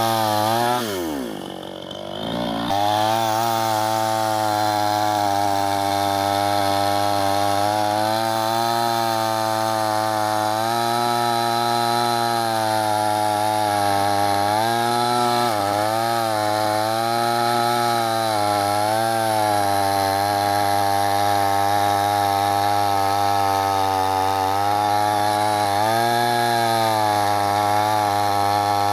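Chainsaw running at speed and cutting wood, its pitch dipping briefly under load several times. About a second in, the pitch falls away sharply and the sound drops, then it comes back up to full speed.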